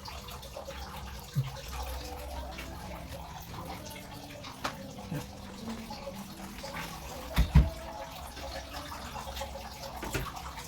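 Water running steadily, with a few short low knocks, the loudest about seven and a half seconds in.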